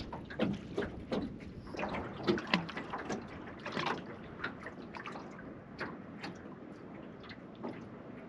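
Small waves lapping and slapping irregularly against the hull of a small aluminium boat drifting on choppy water, a few splashes a second, fewer towards the end.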